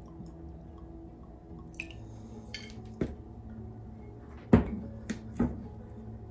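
Glass sherry bottle being handled: a few light clicks and taps as its cork stopper goes back in, then a sharp knock about two-thirds of the way through as the bottle is set down on the countertop, followed by two lighter knocks.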